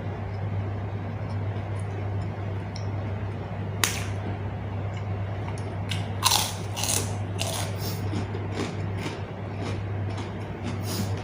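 A person eating close to the microphone: chewing with short, crisp crunching bites, most of them bunched together about six to eight seconds in, over a steady low hum.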